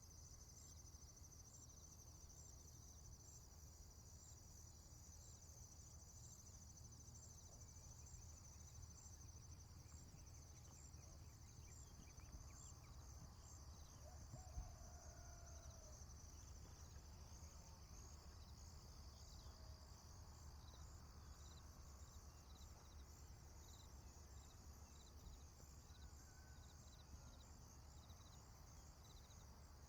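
Faint rural farm ambience: a steady chorus of high, evenly repeating chirps over a low rumble, with a few faint distant calls about halfway through and again near the end.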